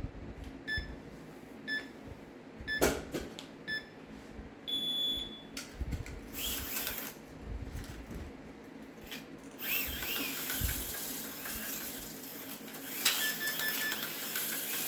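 A lap timer counts down to the start with four short beeps about a second apart, then one longer, higher beep. An AFX Mercedes C-9 HO slot car's small electric motor then whirs around the track, its pitch rising and falling through the corners, and the timer beeps again near the end.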